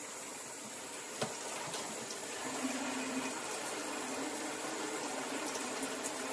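Water running steadily from a shower in a small tiled room, with a single sharp click about a second in.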